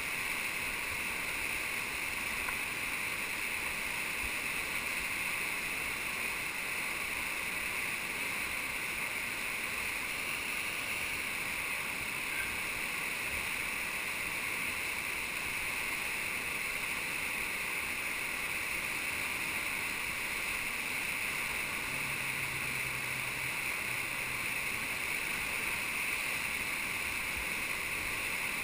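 Steady rush of whitewater from a creek's standing wave and rapids, heard right at the water surface from a kayak's bow.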